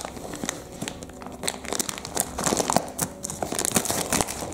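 Clear plastic toy packaging bag crinkling and rustling as it is handled and cut open with scissors, in irregular crackly bursts.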